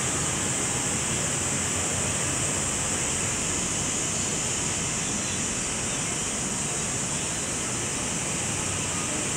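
Steady, even rushing outdoor ambience over a crowded beach seen from high above, with a constant high hiss on top.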